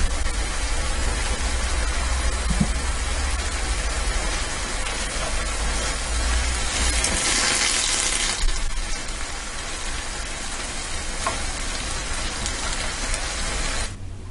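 Asparagus and other vegetables sizzling steadily in a stainless steel frying pan, louder for a second or so about seven seconds in as a spatula stirs them. The sizzling cuts off suddenly near the end.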